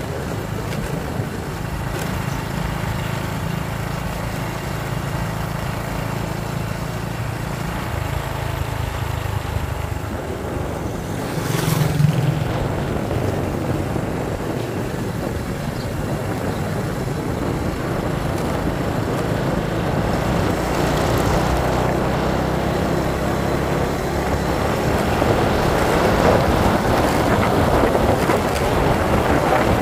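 Motorcycle engine running steadily while riding along a road, with wind rushing over the microphone that grows louder in the second half. A brief louder swell about twelve seconds in.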